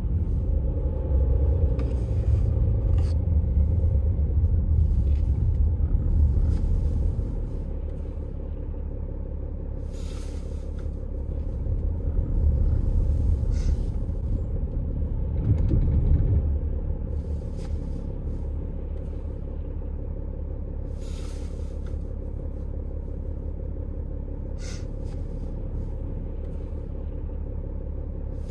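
Diesel vehicle driving: a steady low rumble of engine and road noise, louder for the first seven seconds and again swelling around the middle, with several short clicks scattered through.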